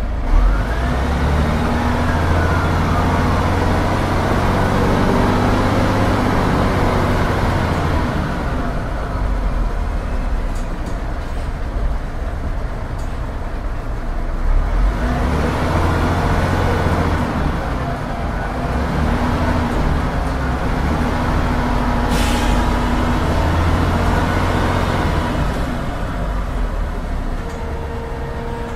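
Büssing DE 74 double-decker bus with its Büssing U10 underfloor diesel engine, running under load and easing off several times, as in driving off and accelerating. A whine rises and then falls in pitch in the first few seconds, and a short hiss of air comes about three-quarters through.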